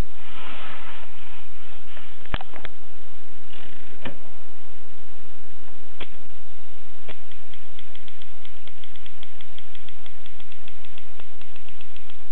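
Continental manual typewriter being typed on: a few separate key strikes a second or so apart, then a quick, even run of keystrokes in the second half, over a steady background hiss.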